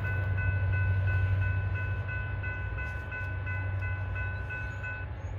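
Railroad crossing bells ringing, about three strokes a second, while the crossing gates rise, then stopping about five seconds in. A loud steady low rumble runs underneath.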